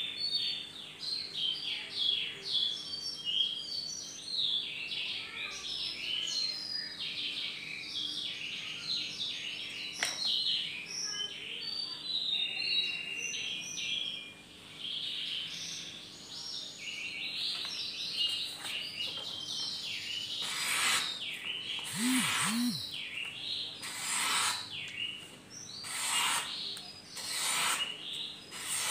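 Small birds chirping and singing busily in quick, high twittering phrases. In the second half several short, harsh rasping sounds come in among them.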